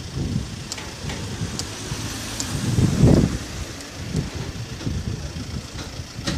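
Police van's engine running as it drives slowly past, a low uneven rumble that swells about halfway through.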